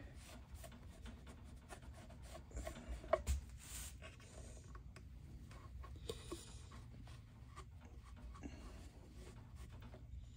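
Faint rubbing and wiping of a damp cloth rag over the finished wood top of a semi-hollow bass, cleaning glue squeeze-out from a freshly glued crack, with small handling clicks.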